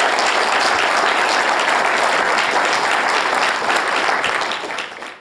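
Lecture audience applauding, steady and dense, tapering off near the end.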